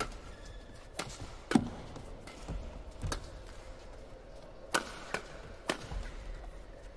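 Badminton rackets striking a shuttlecock in a fast doubles rally: six sharp smacks at uneven spacing, the loudest about a second and a half in.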